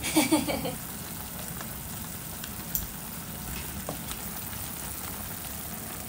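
Earthenware donabe hot pot cooking over a gas burner: a steady sizzling hiss. A short cluster of wavering pitched sounds comes in the first second, and a few faint clicks follow later.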